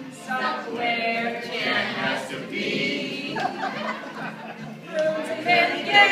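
A small group of voices singing a song together, unaccompanied, with several held notes.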